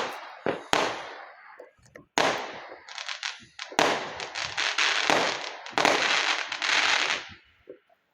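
Fireworks going off: several sharp bangs in the first few seconds, then dense crackling from about four seconds in to about seven.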